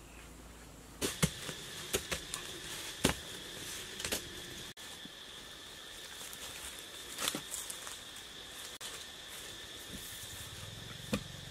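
Wooden sticks and poles jabbed into soil to dig post holes make sharp, irregular thuds, several in the first few seconds and a few more later. A steady high-pitched drone of insects runs underneath from about a second in.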